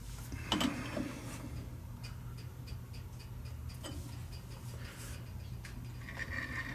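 Light metallic knocks and a run of even ticks, about three a second, over a steady low hum, from a hub being set up and dialed in in a lathe's four-jaw chuck.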